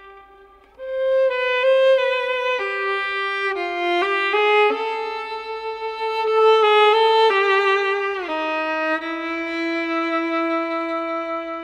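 Background music: a solo violin playing a slow melody of held notes with vibrato, a new phrase entering about a second in.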